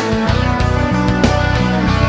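Background instrumental music with guitar.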